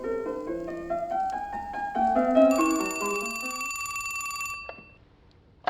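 A short music jingle of stepping notes, joined about two and a half seconds in by a telephone ringing with a trilling bell for about two seconds, both stopping together; a sharp click comes at the very end.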